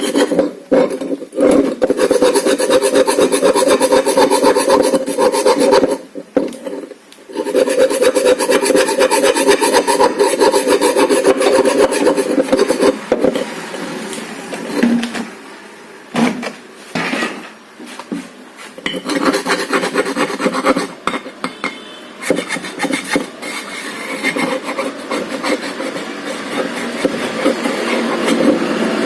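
Rough, rasping scraping that keeps going, made of many rapid strokes. It drops out briefly about six seconds in and turns quieter and patchy for a few seconds midway.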